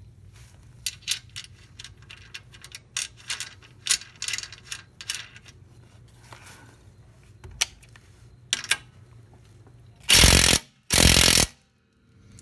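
Scattered metallic clicks and rattles of tools and hardware, then near the end two short bursts from a cordless impact wrench, the loudest sound. The bolt is just free spinning and does not tighten.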